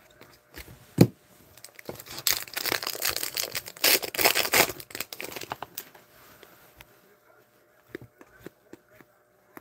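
Hockey card pack wrapper being torn open and crinkled, loudest between about two and five seconds in, after a sharp tap about a second in. Then faint light clicks of the cards being handled.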